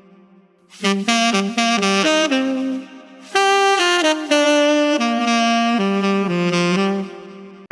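Solo melody on a single wind instrument, played in short phrases with a brief pause partway through, in a jazzy style.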